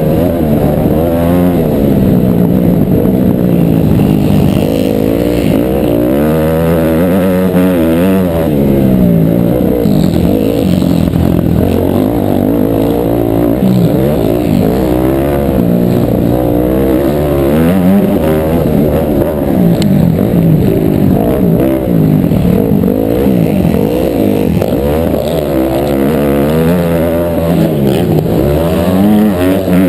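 Motocross dirt bike engine under race load, revving up and falling back over and over as it accelerates out of corners and shifts gears. Loud and harsh through an action camera's microphone.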